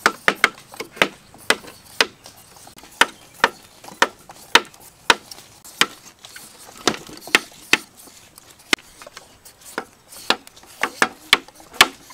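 Knives chopping into whole green papayas held in the hand: an irregular series of sharp chops, about three a second.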